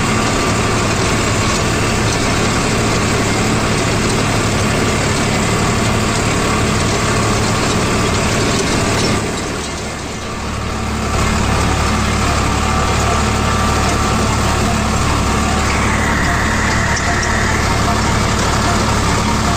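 Farmtrac 60 Classic tractor's three-cylinder diesel engine running steadily under load, driving a GS rotavator through the soil. The sound dips for a moment about halfway, then comes back with a deeper hum.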